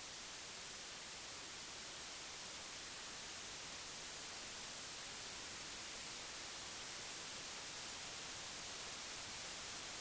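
Television static from an untuned, broken channel: a steady, even hiss, bright and strongest in the high end, slowly getting a little louder.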